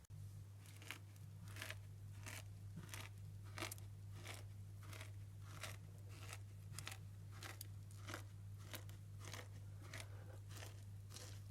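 Grated soap shavings being crushed, giving a steady series of short, crisp crunches, a little under two a second.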